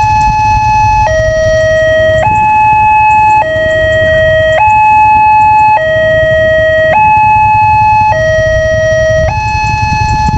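Indonesian railway level-crossing warning siren sounding from the loudspeaker on the signal post: two electronic tones, high and low, alternating about once a second over a steady low rumble. It warns that a train is approaching while the barrier is down.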